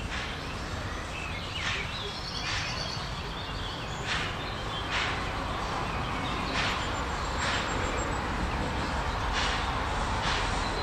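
Steam locomotive 97 501, a Württemberg rack tank engine, working slowly toward the listener, its exhaust chuffing in uneven pairs of beats about a second apart and growing louder as it nears.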